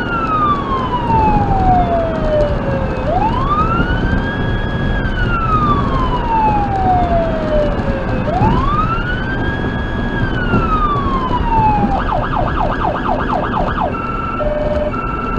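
Federal Signal Touchmaster Delta electronic siren on dual 100-watt speakers sounding a wail: a slow tone rising, holding, then falling, repeated about every five and a half seconds. About twelve seconds in it switches to a fast yelp for two seconds, then to a high-low two-note tone near the end. Steady road and engine noise runs underneath.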